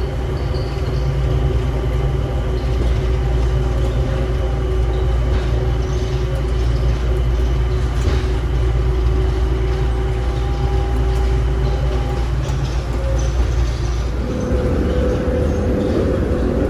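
Steady low rumble of a vehicle in motion, with several steady whining tones over it. About two seconds before the end the deep rumble falls away and a higher tone comes up.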